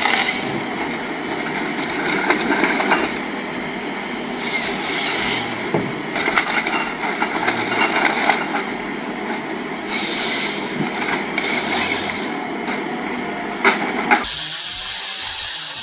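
John Deere 1470E wheeled harvester at work: its engine and hydraulics run hard while the head grips, saws and feeds timber, with a couple of sharp knocks near the end. Just before the end the sound changes abruptly to a thinner, hissier noise.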